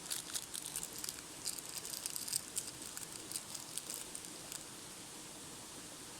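Plastic wrapping being crinkled and handled: a quick, irregular run of light crackles that stops about four and a half seconds in, leaving a steady hiss.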